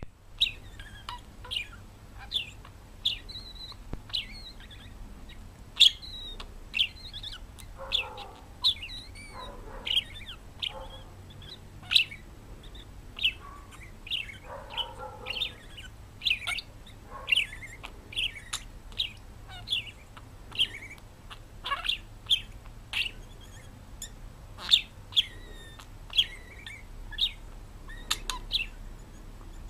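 Parrot chirping over and over in short, sharp calls, about one or two a second. A few lower, longer calls come in about a third and about half way through.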